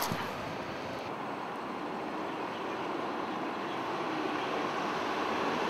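Steady street traffic noise, growing slightly louder towards the end.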